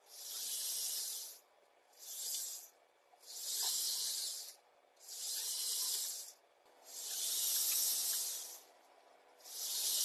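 Hissing in six separate bursts, each a second or so long, with short pauses between them.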